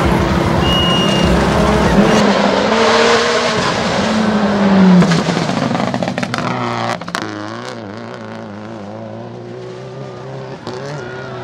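Rally car engine revving hard as it drives flat out on a gravel stage, the pitch rising and falling through the gears and loudest about five seconds in as the car passes. A few sharp cracks come around seven seconds in, then the engine fades away.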